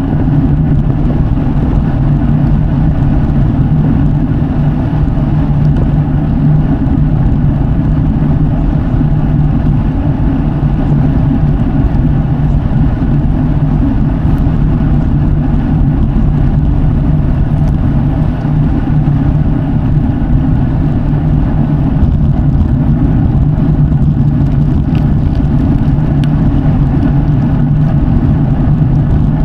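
Road bike tyres rolling on the road at speed: a loud, steady, low hum.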